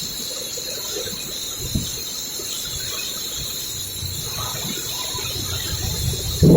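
Heavy rain falling steadily, an even continuous hiss.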